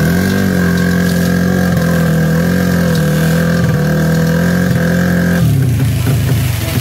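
Drag-race motorcycle engine held at steady high revs at the start line, then the throttle drops back to a rough, uneven low-rev idle a little over five seconds in.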